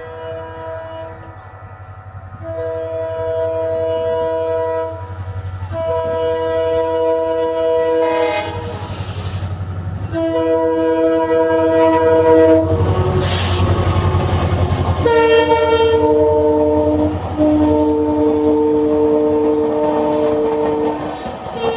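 WDG-4 diesel locomotive's multi-tone air horn sounding a string of long blasts, each two to three seconds, over the low rumble of the engine. About two-thirds of the way through, a couple of seconds of loud rushing noise marks the train passing close. After that the horn chord sounds lower.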